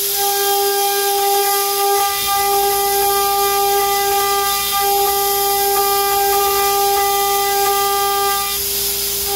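CNC router spindle running at speed with a steady high whine while a 2.5 mm single-flute end mill cuts an aluminium plate, with hiss from the air blast on the cutter. A lower, rougher cutting sound joins about two seconds in.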